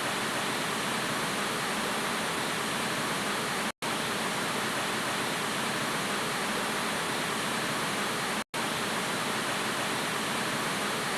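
Steady, even hiss of static noise with no tone or rhythm. It cuts out completely for an instant about four seconds in and again about eight and a half seconds in.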